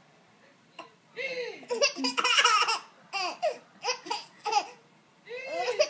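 Baby laughing in bouts of high-pitched laughs whose pitch rises and falls. There is one long run about a second in, then several short separate laughs, and another run starting near the end.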